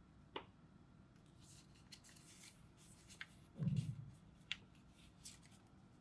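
A square of origami paper being folded and creased by hand on a table: soft paper rustling and crinkling with a few sharp ticks, and one dull thump a little past the middle.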